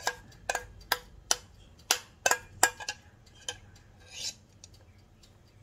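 Metal spoon clinking and scraping against a glass bowl while scooping thick yellow filling into a plastic piping bag: a quick run of sharp, ringing clinks for about three seconds, then a softer rustle and scrape around four seconds in.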